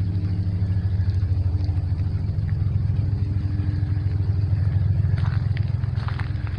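A steady low engine drone with a fast, even pulse.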